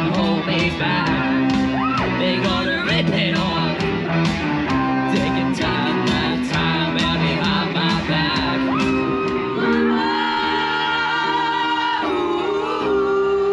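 Live band of electric guitars, keyboard and drums playing a song, with a singer on microphone over a beat of about two drum hits a second. About ten seconds in the beat drops away to held chords, and several voices sing together near the end.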